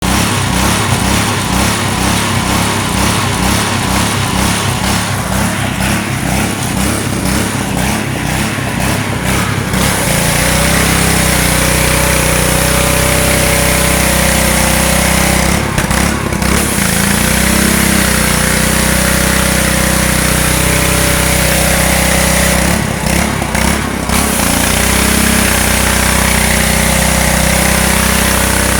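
Gas-engine pressure washer running. For about the first ten seconds it pulses unevenly, roughly three beats a second, then it settles into a steady run with a hiss on top, broken briefly twice.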